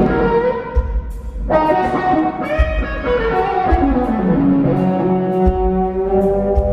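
Live rock band playing: an electric guitar lead of sustained, bending notes over drums and bass, with one long downward slide about halfway through.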